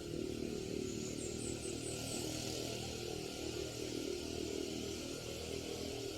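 A small engine running steadily, with a brief burst of high chirping about a second in.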